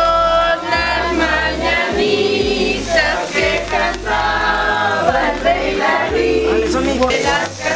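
Several voices singing together over music with a pulsing bass.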